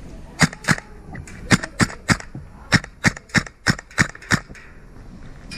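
Airsoft gun firing single shots: about eleven sharp snaps, some in quick pairs, then a run of roughly three a second, stopping a little past the middle.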